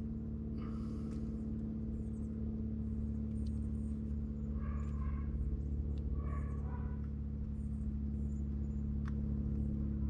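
A steady low mechanical hum, with a couple of faint clicks as needle-nose pliers press a wire's spade terminal onto an air-conditioner capacitor.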